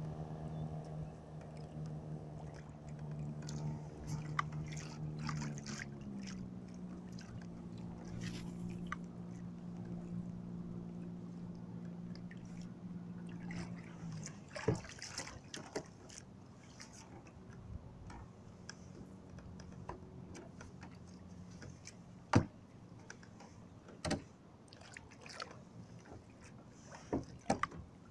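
A steady humming tone that steps up in pitch about six seconds in and stops about halfway through. After it come water sloshing around a kayak and several sharp knocks of gear against the hull, the loudest a little past the middle.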